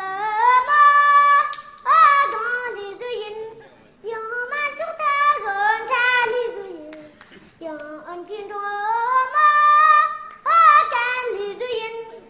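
A child singing alone in a high voice, in long phrases with held notes and short breaths between.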